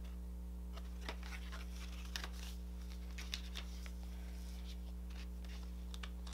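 Light rustling and a few soft taps of a cardboard French curve ruler and paper sheets being handled on a cutting mat, over a steady low hum.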